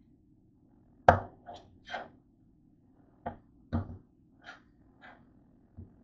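Spatula knocking and scraping against a frying pan as potato slices and butter are pushed around, about eight separate strikes. The loudest strike comes about a second in.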